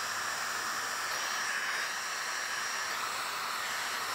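Electric heat gun running steadily, a hiss of blown hot air with a thin high whine over it, warming vinyl wrap film so it molds to a curve.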